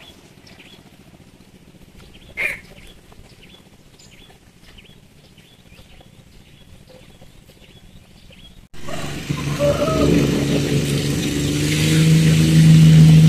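Faint, regularly repeated bird chirps over a quiet garden background, with one short sharp sound about two and a half seconds in. Near the end the sound cuts abruptly to a loud engine running steadily with a low hum, like a motorcycle.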